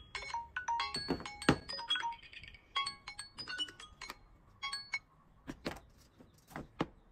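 Phone alarm ringtones playing short chiming melodic notes, broken by knocks and clicks of phones being picked up and handled. About two-thirds of the way through the tones stop, leaving a few scattered taps.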